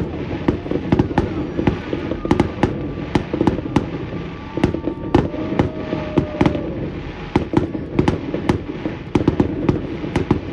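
Fireworks display going off in a dense, continuous run of sharp bangs and crackles, several a second, over a steady low rumble.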